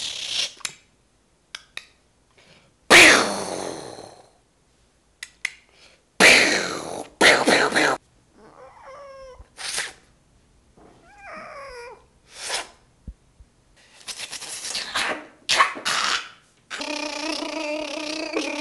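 Women imitating animal noises with their voices: a string of short, breathy mouth-made bursts and a few wavering pitched calls, ending in a longer steady pitched sound.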